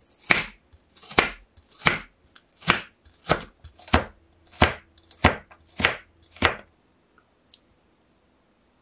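Crinkle cutter chopping raw kohlrabi into wavy sticks on a wooden cutting board: about ten sharp chops at a steady pace, roughly one every two-thirds of a second, then the chopping stops.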